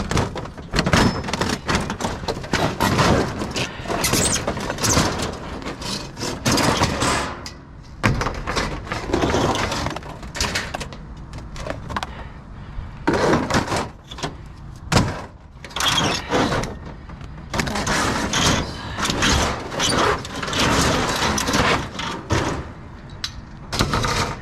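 Scrap metal clattering and banging as it is shifted and pulled out of a dumpster: a dense, irregular run of knocks, crashes and scraping.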